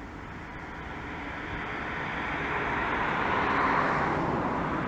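Embraer E170's two turbofan engines running as the jet turns on the runway to line up for takeoff. The engine noise swells steadily and peaks about four seconds in.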